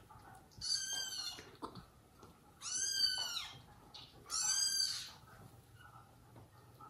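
Young kittens mewing: three high-pitched calls, each arching up and down in pitch and lasting well under a second, about a second and a half apart.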